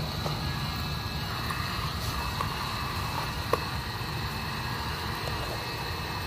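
Fire burning in a metal fire pit with cut-out holes: a steady low rumble with a few crackling pops, the loudest about three and a half seconds in.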